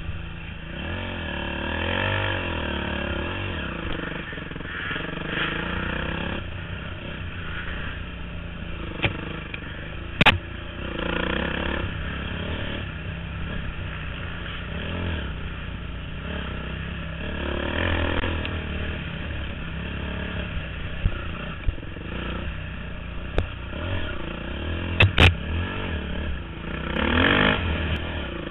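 Dirt bike engine ridden hard through a wooded trail, revving up and down in repeated surges as the rider works the throttle, heard close from a helmet camera. A few sharp knocks come through about a third of the way in and twice near the end.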